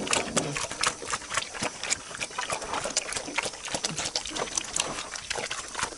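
Pigs chomping and crunching corn, a dense run of irregular crunches and wet smacks, with a short grunt right at the start.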